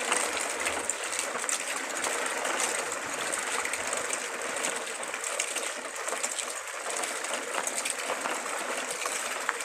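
A string of plastic toy vehicles towed over rough asphalt: their small plastic wheels roll with a steady gritty rattle full of small clicks.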